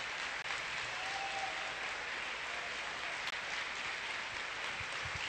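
Large audience applauding, a steady wash of clapping.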